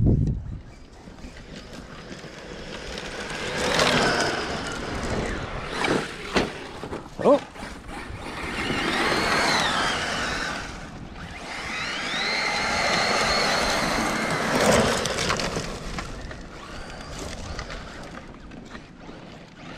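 Brushless electric motors of radio-controlled short-course trucks whining, the pitch climbing and falling with the throttle as they run over dirt, with a few sharp knocks about six to seven seconds in.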